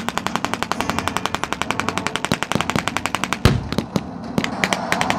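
Machine gun firing blanks in a long sustained burst of rapid, evenly spaced shots, then one loud deep blast a little past halfway, followed by scattered short bursts and single shots.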